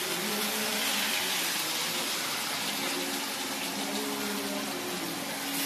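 Wheat-flour pinwheel rolls deep-frying in a kadai of hot oil, a steady sizzle.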